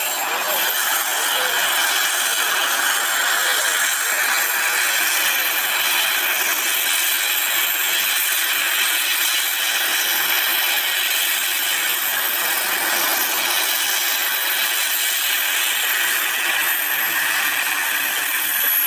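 Gas turbine engine of a large RC scale model helicopter running steadily: a high whine of several steady tones over a loud hiss, with the highest whistle sinking slowly in pitch in the last few seconds.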